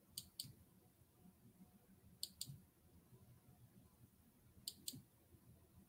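Three pairs of quick, faint clicks, each pair a fraction of a second apart and the pairs about two and a half seconds apart, over near silence.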